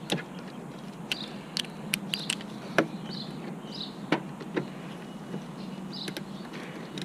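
Irregular sharp metallic clicks and taps of a hand wrench tightening a car battery terminal clamp, about ten in seven seconds.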